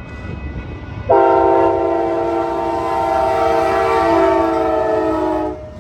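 Amtrak P42 diesel locomotive sounding its horn: one long chord of several notes held about four and a half seconds, starting about a second in and cutting off sharply, its pitch sagging slightly near the end as it passes. Rumble of the approaching train runs beneath it.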